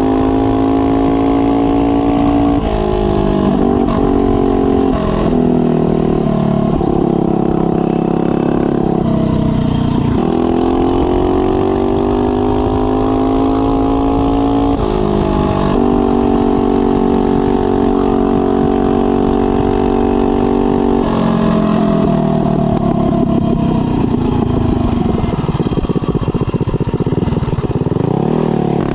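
Mega Moto 212cc mini bike's single-cylinder four-stroke engine running hard while riding. Its pitch holds steady for stretches, dips and climbs again several times as the throttle is eased and reopened, and falls away then rises near the end, with low wind noise on the microphone. The engine is still on its break-in oil.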